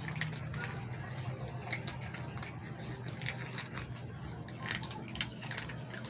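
Several cats crunching dry kibble from a plastic tub, a quick irregular run of small crunches and clicks, over a steady low hum.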